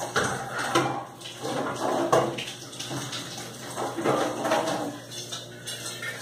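Kitchen tap water splashing into a sink in uneven surges, with a few sharp knocks.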